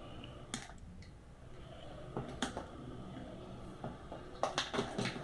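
Small scattered clicks and ticks as a knife blade pries the cell-cap strip off a 12 V sealed lead-acid motorcycle battery, the caps coming loose one by one. A quick run of clicks comes near the end.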